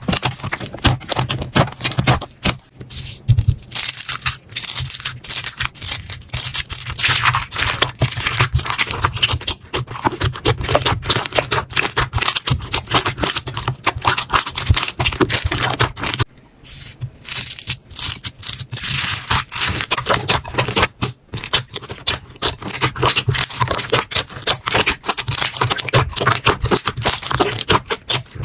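Slime being squished and worked, giving a dense run of crackling clicks and pops that breaks off briefly about halfway through.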